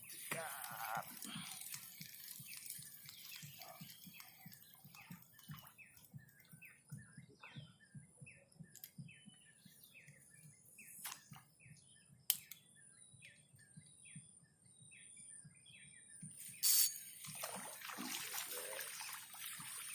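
Small birds chirping over and over in short, high notes. A sharp knock comes about twelve seconds in, and near the end a louder rush of noise.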